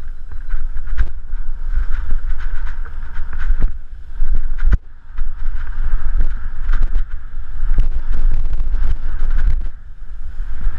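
Wind buffeting a bike-mounted camera's microphone as a BMX bike rides a dirt trail and jumps, with the bike rattling and knocking over the bumps. A sharp knock comes about five seconds in, just after a brief lull.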